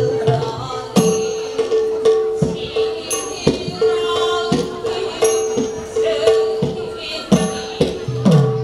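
Live Manipuri classical dance music: low drum strokes that drop in pitch after each hit, at an uneven rhythm, with small cymbals ringing at the strokes over a steady held note.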